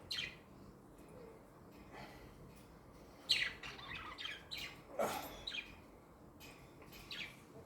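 Budgies chirping in short bursts of quick falling chirps, with a busier cluster in the middle and a single knock along with it about five seconds in.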